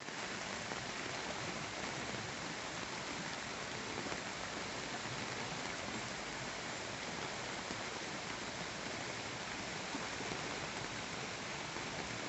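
Steady, even hiss of falling or rushing water, unchanging throughout.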